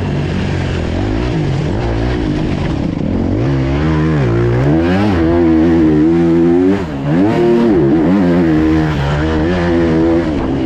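Motocross bike engine close up under hard riding, its pitch climbing and dropping again and again as the throttle is opened and closed, with a brief drop when the throttle shuts about seven seconds in.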